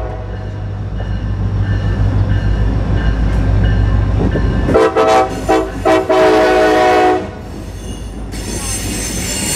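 CSX freight train's diesel locomotives running past with a steady low engine drone, then the horn sounding three blasts about five seconds in, the last one the longest. Near the end the freight cars roll by with a thin, high wheel squeal.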